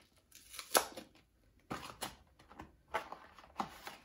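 Paper packaging being handled and torn open: a string of sharp crinkles and rips, the loudest just under a second in.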